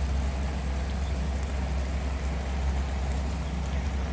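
Steady low hum of an oven running, its motor and fan going while chicken roasts inside.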